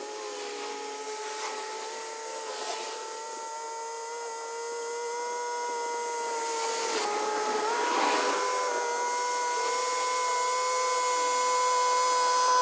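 Yanmar F195 compact diesel tractor running with its rear rotary tiller working the grassy soil: a steady mechanical whine that grows louder as the tractor approaches, stepping up slightly in pitch about seven seconds in.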